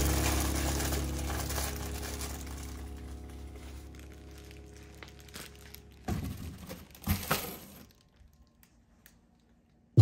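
A clear plastic bag of wrapped plastic cutlery packets crinkling and rustling as it is handled, under a held music chord that fades out over several seconds. About six seconds in come a few short rustles and knocks, then near silence.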